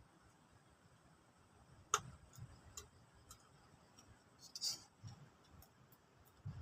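Eating sounds: a spoon clicking several times against a plate, the sharpest click about two seconds in, with soft chewing and a brief crunch just past the middle.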